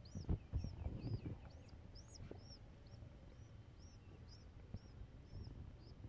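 An eight-day-old pigeon squab squeaking in short, high, rising-and-falling peeps, about three a second, as it begs while a parent feeds it beak to beak. Soft low thumps in the first second and a half.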